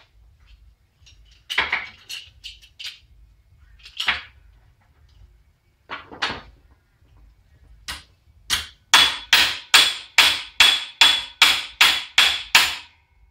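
Hammer blows flattening a bent 14-gauge galvanized steel garage door hinge on a block: four spaced strikes, then a quick run of about eleven at two or three a second, each with a metallic ring.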